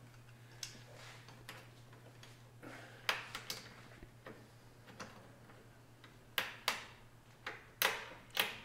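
Irregular metal clicks and clacks as slip-joint pliers grip and slide hose clamps onto the lower radiator hoses, bunching into quick groups about a third of the way in and again near the end, over a faint steady hum.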